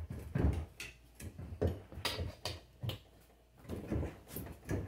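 Hands pushing and working the bead of an old, dry-rotted lawn mower rear tire down off its steel rim: irregular rubbery scuffs and knocks.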